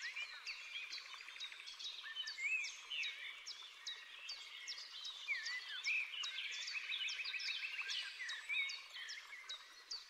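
Forest birdsong chorus: many small birds chirping and whistling at once, with rapid repeated short downward-sweeping chirps and occasional longer warbled phrases, all high-pitched.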